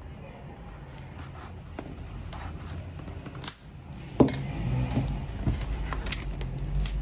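A knife slitting and tearing open the seal of a cardboard keyboard box, with scraping and crinkling, and a sharp knock about four seconds in, followed by a low handling rumble.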